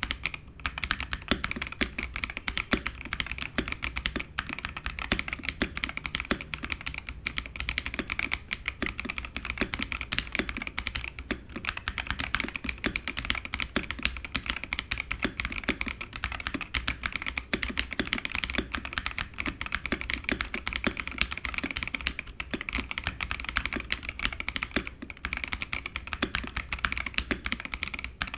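Fast, continuous typing on a Xinmeng X87 gasket-mounted mechanical keyboard fitted with Kailh Crystal Burgundy switches: a dense stream of key clacks, broken only by a few brief pauses.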